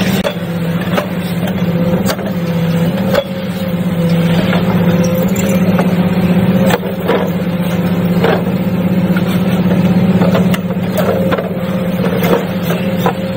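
Giken SA100 silent piler working a steel sheet pile: a steady, loud low drone of its hydraulic drive running, broken by scattered sharp metallic knocks and clanks every second or two.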